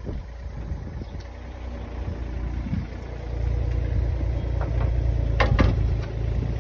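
A truck engine running steadily, getting louder about three seconds in as the crane boom lifts the radiator on its chain, with a couple of short clanks near the end.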